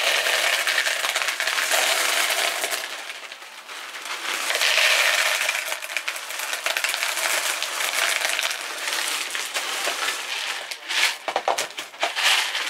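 Expanded clay pebbles poured from a bag into plastic plant pots as a drainage layer, rattling in two long pours with a short break about three and a half seconds in.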